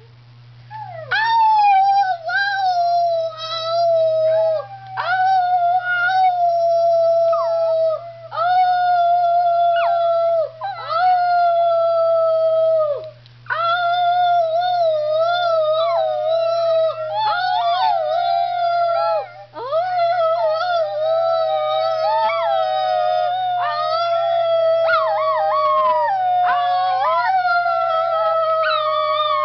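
Schnauzer howling: long held howls one after another at a fairly steady pitch, each broken off briefly with a dip in pitch before the next begins.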